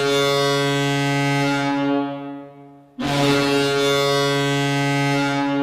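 Hockey goal horn sounding two long blasts, each one steady low tone. The first fades away about two seconds in; the second starts about a second later and holds steady.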